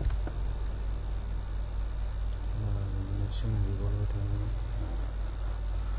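A steady low hum, with a click just after the start and a man's voice faintly murmuring for about two seconds in the middle.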